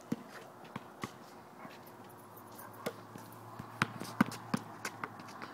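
Basketball bouncing on a hard outdoor court: a few scattered single bounces, then a quicker run of dribbles about three a second in the second half.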